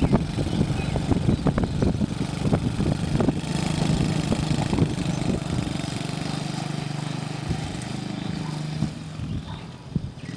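Small youth ATV's engine running as it drives across grass, with irregular knocks in the first few seconds, then a steady hum. The sound drops away near the end as the quad moves off.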